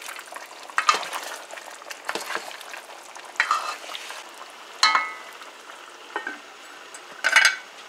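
Duck pieces sizzling in curry paste in an aluminium pot as the liquid cooks off, while a spatula stirs and scrapes through them. About five seconds in, the aluminium lid is set on the pot with a short ringing clank, and another clatter follows near the end.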